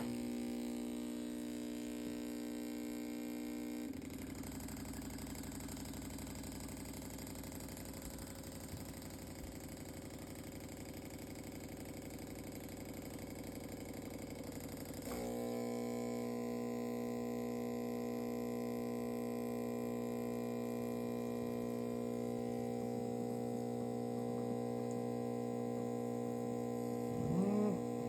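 DeLonghi Magnifica S espresso machine's water pump buzzing steadily as it pushes water through during a test run. Between about 4 and 15 seconds in the buzz turns rougher and less even, then returns louder and steadier, with a brief louder swooping sound near the end.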